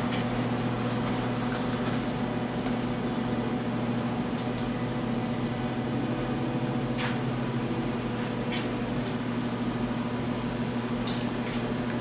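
Steady low hum of room tone, with a few light clicks and rustles as a half-face respirator with filter cartridges is fitted over the face and its straps pulled over the head.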